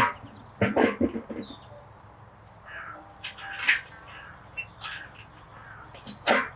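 Birds calling, among them crow-like caws, with a few sharp knocks and clatters mixed in.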